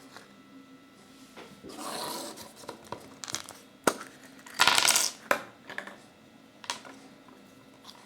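Kinder Surprise egg parts and small plastic toys being handled: a few sharp clicks and two crinkling rustles, the loudest about halfway.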